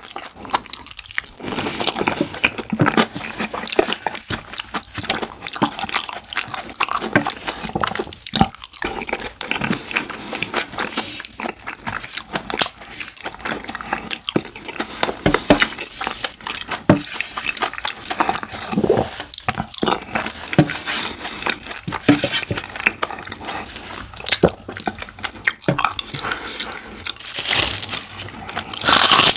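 Close-miked eating of jajang rice and curry rice: wet chewing, smacking and swallowing with irregular clicks and some crunching. There is a louder burst of noise near the end.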